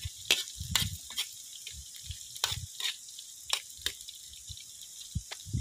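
Oil and ingredients sizzling in a wok over a wood fire, a steady hiss broken by irregular sharp clicks and scrapes of a metal ladle against the wok as it is stirred.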